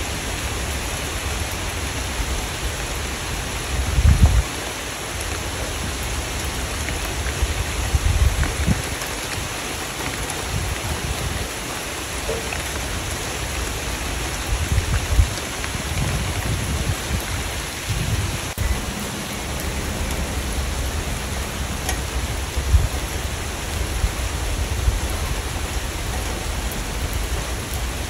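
Steady rain falling, an even hiss of drops, with brief low rumbles every few seconds.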